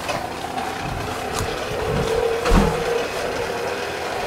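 Plastic toy lawn mower pushed across grass, giving a steady engine-like hum, with a thump about two and a half seconds in.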